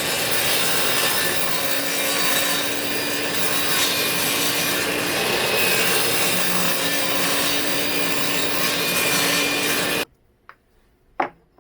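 Table saw running and cutting through wood: a steady, loud sawing noise with a faint hum underneath. It cuts off suddenly about ten seconds in, followed by two short knocks.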